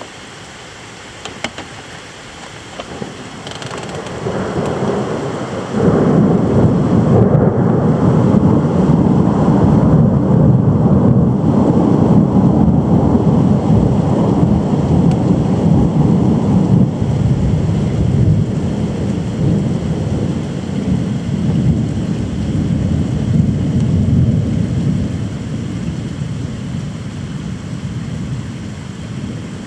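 Rolling thunder over steady rain. The rumble builds about four seconds in, jumps sharply about two seconds later, and rolls on loudly for nearly twenty seconds before slowly fading.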